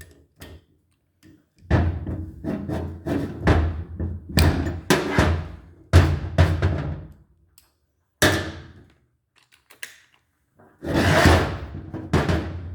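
A series of irregular metal thunks and knocks from working on an aluminium cylinder head on the bench: the head being handled and its cam-cap bolts being broken loose with a hand ratchet.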